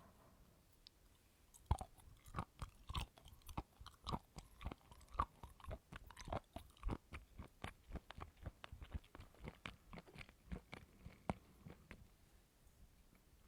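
A person chewing coconut: a rapid run of short, sharp chewing clicks, about three to four a second, that begins a couple of seconds in and thins out near the end.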